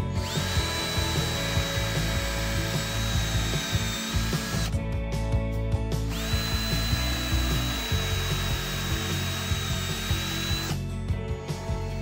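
Ryobi cordless drill boring into weathered wooden gate boards, its motor whining at a steady high pitch. It runs twice, about four and a half seconds each time, with a pause of about a second and a half between.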